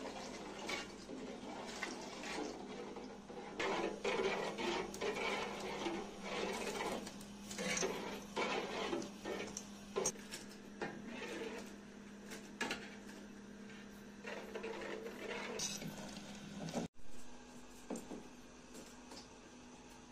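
Metal spoon stirring soup in a large copper pot, scraping and clinking against the sides, over a steady low hum. Milk is being poured into the pot as the stirring begins.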